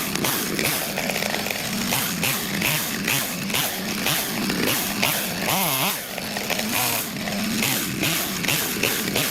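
Stihl MS 660 two-stroke chainsaw running steadily while cutting firewood. About five and a half seconds in, a brief wavering tone rises over the saw.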